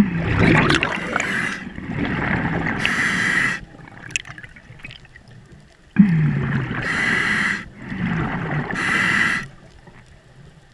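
A scuba diver breathing through a regulator underwater: two breaths, one at the start and one about six seconds in, each a hiss of air followed by bubbling exhaust.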